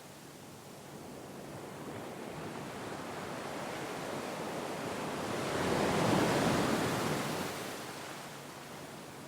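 Sea waves breaking gently on a shore: the surf swells over several seconds, peaks a little past the middle, then fades back to a soft wash.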